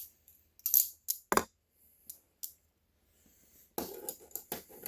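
Sharp clicks and light clatter of a cheap serrated butterfly knife being handled: a few single clicks, then a quick run of clicks with some rustling near the end.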